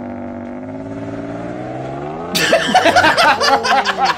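Car engine revving hard, its pitch climbing slowly as the car slides. About halfway through, loud laughter suddenly comes in over it.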